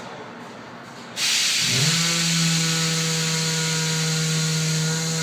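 Pneumatic air tool running free. A hiss of air starts about a second in, then the tool's motor spins up to a steady whine that holds for about four seconds.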